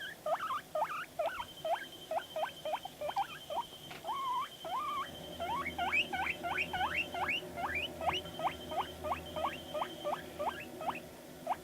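Guinea pig wheeking: a long run of short, sharply rising squeaks, about two to three a second, with a couple of lower, drawn-out squeaks around four to five seconds in.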